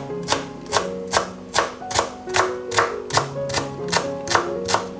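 Chef's knife chopping coriander stems on a cutting board in a steady rhythm, about two or three sharp chops a second, over background music with held notes.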